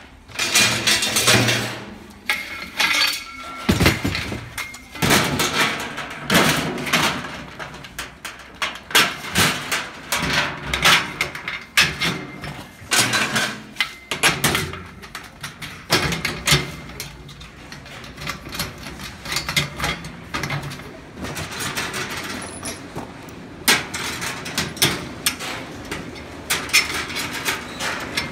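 Irregular knocks, clanks and scraping of wheelbarrow parts and hand tools being handled and fitted together during assembly.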